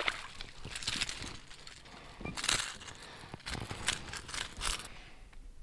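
Irregular rustling and scuffing handling noise, a string of short crackly bursts, as a small perch is swung aboard on the line and handled; it dies away about five seconds in.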